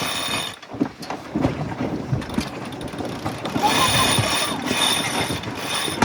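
Sailboat sheet winch being cranked as the jib sheet is hauled in after a tack, its ratchet pawls clicking in irregular runs along with knocks from the line and fittings. A steadier hissing sound joins about halfway through.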